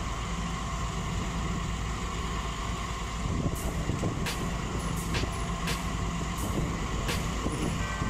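Diesel engines of a Sumitomo SH210 hydraulic excavator and a wheel loader running steadily as the excavator works its arm, with several sharp knocks from about three and a half seconds in to about seven seconds.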